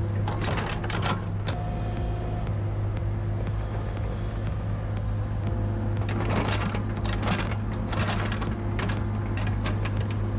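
Forestry machine's diesel engine running steadily, with several short noisy bursts of wood being worked; the longest is about six to seven and a half seconds in.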